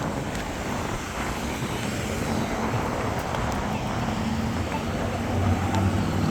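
Road traffic passing, a steady rush of cars with a vehicle getting louder near the end.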